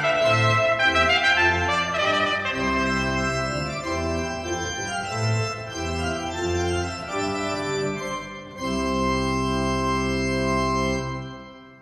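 Trumpet and pipe organ playing a Baroque sonata. The trumpet drops out within the first few seconds and the organ carries on alone, closing on a long held chord that is released and dies away near the end.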